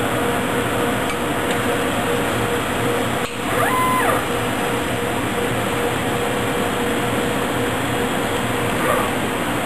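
Ultratech Stepper 1700 lithography tool running: a steady rush of fan and air noise with a constant hum. About three and a half seconds in, a brief whine rises in pitch, holds, and falls again.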